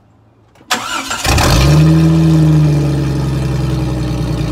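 A Jeep Cherokee XJ's engine is started and catches about a second in, then runs loudly at idle. The exhaust pipe is cut open ahead of the muffler, so the exhaust comes straight out of the open pipe with no muffling.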